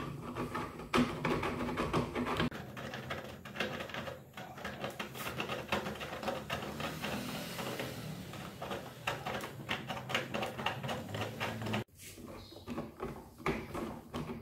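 Dense, rapid mechanical clicking and clattering of workshop work, broken off sharply about twelve seconds in.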